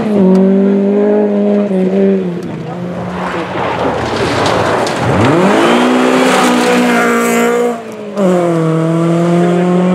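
Rally car engines at full throttle on a gravel stage. A steady high engine note stops about two seconds in and gives way to a rushing noise. Then a second car accelerates hard with its engine climbing in pitch, breaks off briefly for a gear change just before eight seconds, and carries on at high revs.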